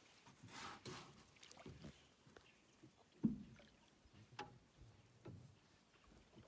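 Faint sounds of a small fishing boat on the water: scattered knocks and bumps against the hull, the loudest a sharp thump about three seconds in.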